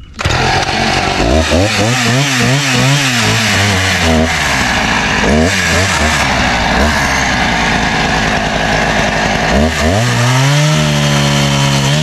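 Two-stroke chainsaw cutting through wood, its engine speed swinging up and down repeatedly as it loads and unloads in the cut. Near the end it revs up and holds a high, steady pitch.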